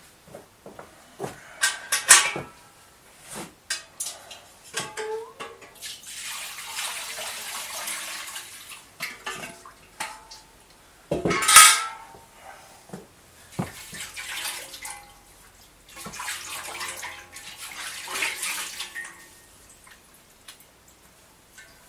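Water poured and splashing into a basin in two stretches of a few seconds each, between clinks and clatters of metal or crockery, with one loud clank near the middle.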